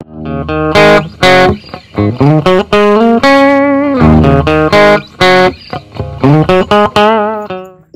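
Background music: a guitar-led tune with regular percussive hits, fading out near the end.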